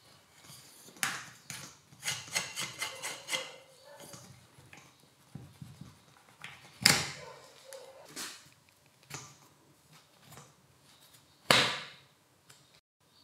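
Workshop handling of a Makita HR2451 rotary hammer's body and side handle on a wooden workbench as the handle is twisted off: a quick run of sharp clicks early on, scattered light knocks, and two loud sharp knocks, about seven seconds in and near the end.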